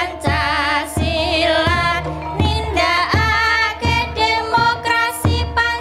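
Music: a high voice singing with heavy vibrato over a steady drum beat, about one low drum hit every 0.7 seconds.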